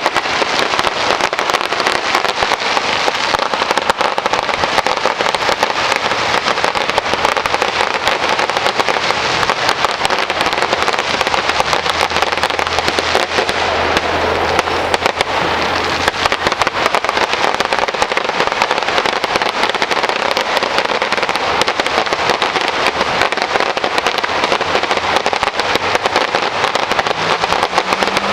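Fireworks crackling: a dense, steady rattle of many small pops.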